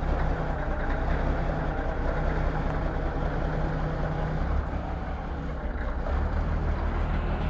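A P&H excavator's machinery running steadily with a low rumble and hum, staying even throughout.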